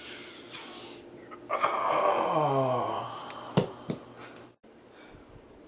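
A man's long groan, sliding down in pitch for over a second: an acted dying groan. It is followed by two sharp clicks.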